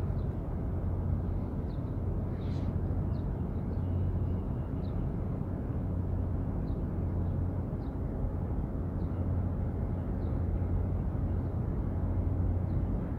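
Steady low outdoor rumble with a band of hum near 100 Hz, and faint short high chirps about once a second.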